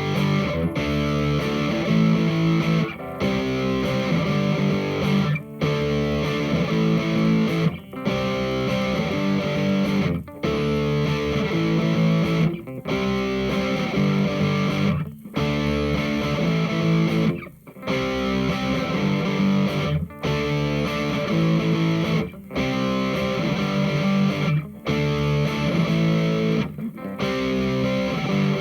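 Electric guitar played through the overdrive (lead) channel of a Hughes & Kettner Attax Metroverb, a 50-watt transistor amp, giving a distorted tone. A riff repeats with a brief stop about every two and a half seconds.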